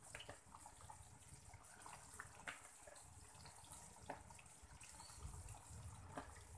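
Near silence: a faint hiss with a few soft clicks and light splashes as raw chicken pieces are put into a pot of curry sauce.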